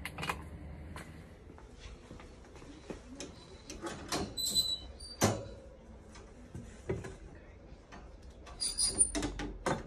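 Stainless steel kennel's wire cage door being unlatched and swung open: scattered metal clicks, knocks and rattles, with short high metallic rings about four seconds in and again near the end, and one louder knock just after five seconds.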